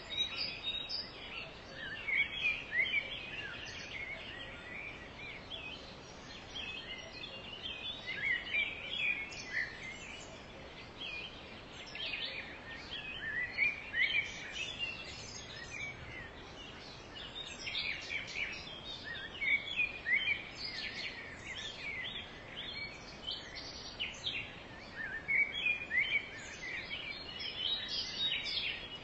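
Several birds chirping and calling in short, overlapping notes, over a faint steady hiss.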